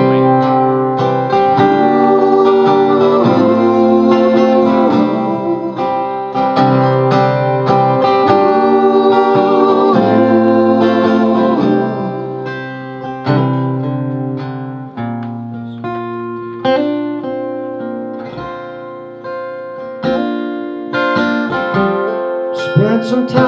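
Live band playing an instrumental introduction: strummed acoustic guitar over upright double bass and drums, softer through the middle and building again near the end.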